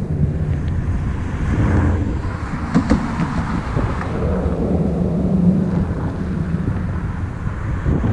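Thunder rumbling low and continuously, with wind buffeting the microphone and a few sharp crackles about three seconds in.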